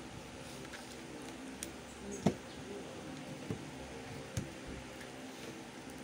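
Steady hum of an electric pedestal fan, with four sharp clicks and knocks as a speed cube and other things on the table are handled. The loudest knock comes a little over two seconds in.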